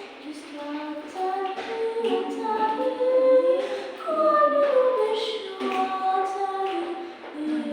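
A small group of young voices singing a song a cappella, with no instruments, on held notes that move through a melody.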